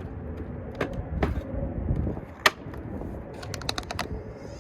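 Sharp clicks and knocks of a replacement car door handle and its clips being handled and fitted into the door. There is one loud click about halfway through and a quick run of clicks near the end, over a low background rumble.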